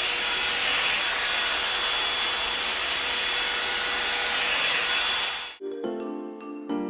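Revlon One-Step hot air brush dryer running on its high setting: a steady rush of air with a faint motor whine. It cuts off suddenly about five and a half seconds in, and background music with mallet-like notes follows.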